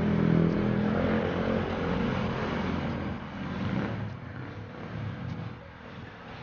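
A motor vehicle engine running close by, its steady hum fading away over the first few seconds and leaving quieter background traffic noise.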